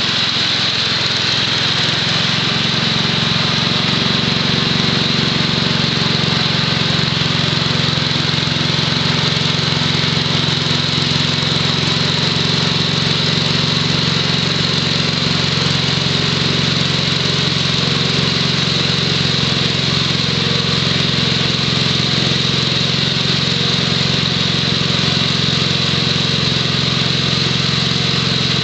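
The 6 HP Tecumseh H-60 single-cylinder engine of a 1967 Wheel Horse Lawn Ranger running steadily, driving a 32-inch snowthrower through snow, with a steady hiss over the engine note.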